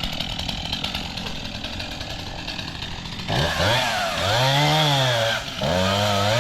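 STIHL chainsaw running, then revved hard about three seconds in as it cuts into the tree trunk. Its engine pitch rises and sags under load and dips briefly near the end.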